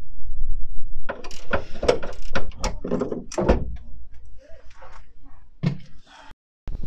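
Ratchet spanner clicking as the battery hold-down bolt is undone: a quick, uneven run of sharp clicks lasting about two and a half seconds. Then quieter scattered knocks as the car battery is lifted out of its tray.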